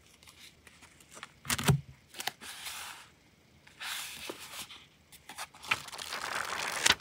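Paper being handled: stacks of sticker sheets and a small paper pad rustle and slide, with a sharp tap about a second and a half in as a stack is set down. Near the end a thin translucent sheet is turned back with a crinkling rustle that ends in a sharp crackle.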